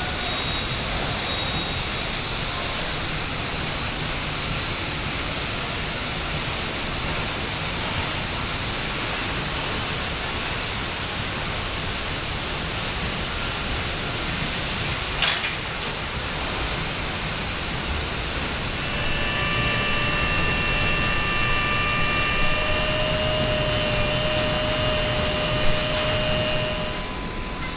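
Car assembly plant floor noise: a steady rush of machinery and air handling, with a single sharp clank about halfway through and a few steady whining tones in the last third.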